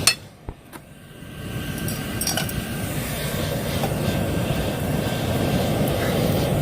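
Air blower forcing air into a charcoal-fired homemade furnace: a knock and a couple of clicks at the start, then a steady rushing noise that builds up over about a second and holds.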